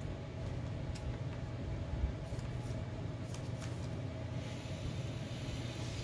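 Steady low hum of room background, with a few faint clicks and taps of trading cards being handled and shuffled on a playmat.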